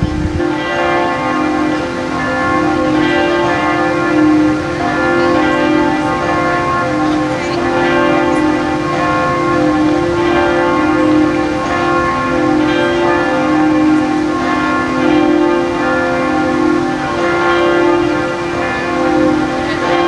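Bells ringing continuously, a new stroke every second or so, their tones overlapping and ringing on into one steady peal.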